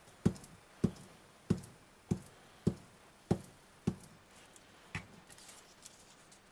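Glue stick knocking on a strip of card laid on a cutting mat with each stroke as glue is spread, seven sharp knocks about one every 0.6 seconds, then a single softer knock about five seconds in.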